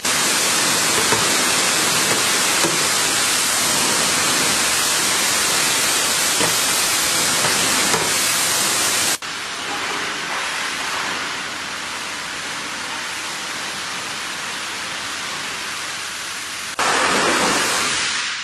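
Water spraying and splashing on a plastic poultry feeder pan as it is rinsed: a steady hiss that drops suddenly to a quieter level about nine seconds in and jumps back louder near the end.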